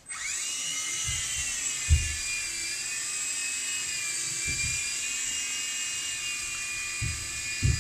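Blade mCX micro coaxial RC helicopter's small electric motors and rotors spinning up, rising quickly in pitch, then running as a steady high whine. A few low thumps come through underneath.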